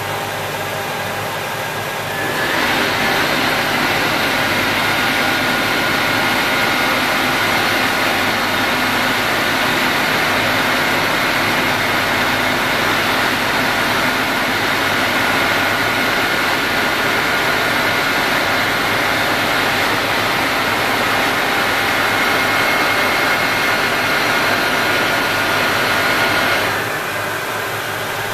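Horizontal boring mill's table feed drive running steadily with a whine, traversing the workpiece past a dial indicator. It switches on about two seconds in and stops shortly before the end, over the machine's lower steady hum.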